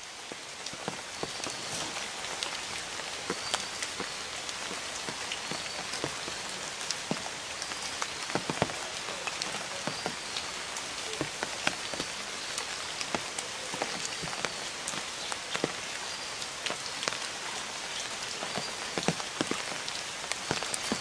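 Steady rain falling on a pond and the foliage around it, an even hiss with many scattered drop ticks. A faint high chirp repeats about once a second behind it.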